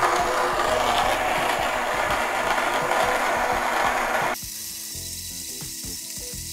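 TIMEMORE Grinder GO electric burr grinder, with titanium-coated burrs, grinding coffee beans at a coarse setting: a loud crunching grind. About four seconds in it drops suddenly to a quieter rattling, clicking run as the burrs spin on with the beans used up.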